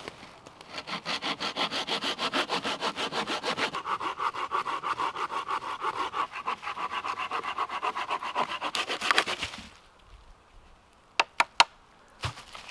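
Hand saw cutting through wood with rapid, even back-and-forth strokes, which stop abruptly about nine and a half seconds in. A few sharp clicks and two knocks follow near the end.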